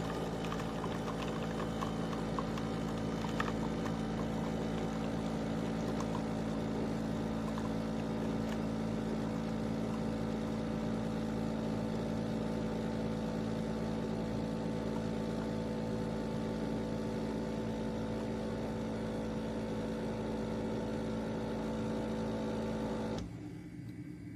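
De'Longhi Rivelia automatic espresso machine running with a steady mechanical hum and light clicks and drips early on, then cutting off suddenly near the end.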